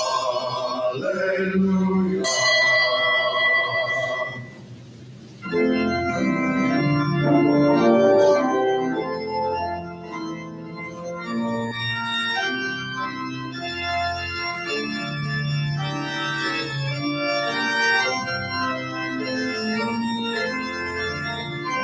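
Organ playing in a church: a held chord dies away about four seconds in, and after a short pause the organ carries on with a flowing line of many changing notes.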